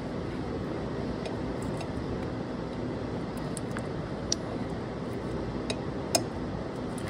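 A few light, sharp metal clinks as a gloved hand works the A/C compressor clutch plate, the loudest about six seconds in, over a steady background hum.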